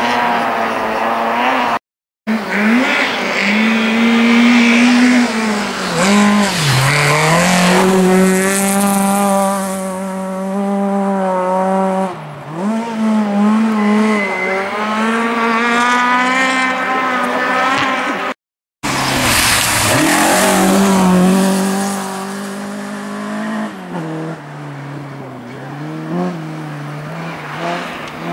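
Rally car engines revving hard through a snowy corner, their pitch swooping up and down with the throttle. Two brief cuts to silence split the sound into three passages, one car after another.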